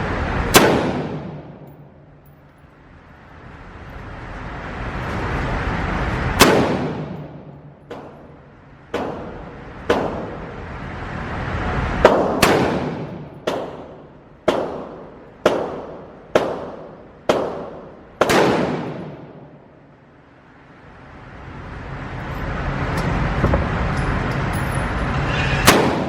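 About a dozen gunshots from a handgun or rifle fired at a range, each a sharp crack with a short ringing tail. There are single shots a few seconds apart, then a quick string of about one shot a second in the middle. Between shots a broad hiss swells up over several seconds.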